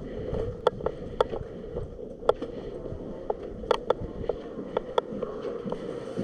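Airsoft gunfire around a close-quarters field: a dozen or so sharp single snaps of shots and BB hits at uneven intervals, some in quick pairs, over a steady background hum.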